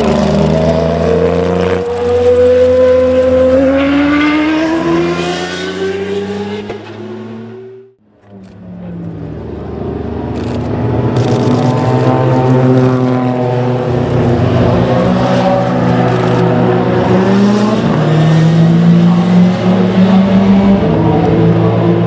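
Group C prototype race cars' engines at speed: one revs up, rising in pitch, then fades as it pulls away and cuts off abruptly about eight seconds in. Another car's engine then builds and runs loud at high revs, its pitch rising and dropping with the gear changes.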